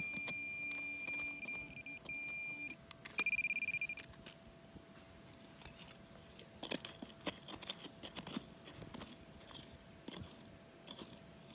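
Handheld metal-detecting pinpointer probe sounding a steady high tone for the first three seconds or so, then a fast pulsing beep for about a second, signalling metal in the soil. After that come soft scraping and rustling as fingers dig through dry, crumbly soil.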